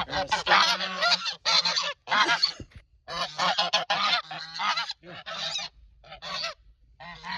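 Geese honking loudly over and over in quick runs, with short breaks near the middle and toward the end: the excited honking of geese being fed mealworms and superworms.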